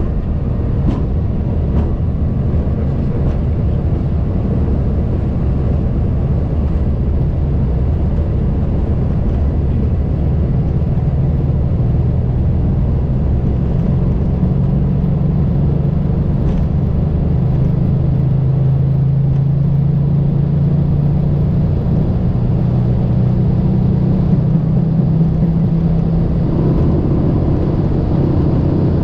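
Boeing 737-800 on its takeoff roll heard from the flight deck: a loud, steady rumble of the CFM56 engines at takeoff power together with the wheels on the runway. A low droning tone joins about halfway through as the speed builds.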